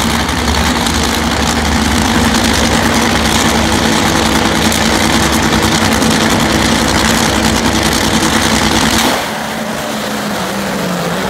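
Two nitro-burning Funny Car engines running loud and steady at the drag strip's starting line. About nine seconds in the sound drops sharply as the cars launch and pull away down the track.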